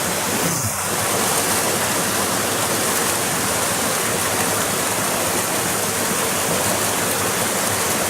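Waterfall pouring and splashing: a steady, loud rush of water.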